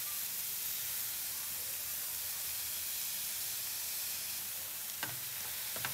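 Broccoli, mushrooms and peas sizzling steadily in a hot grill pan, with a couple of faint clicks near the end.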